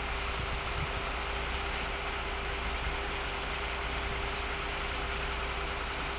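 Boom truck's engine running steadily at idle, with a steady tone over it, while the truck powers its hydraulic crane boom.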